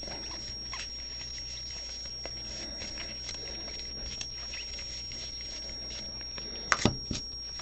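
Trading cards being handled and flipped through: soft scattered ticks and rustles, with two sharper knocks a little before the end, over a steady faint hum.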